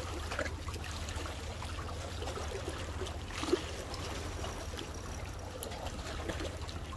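Small sea waves washing against shore rocks, an even hiss over a steady low rumble.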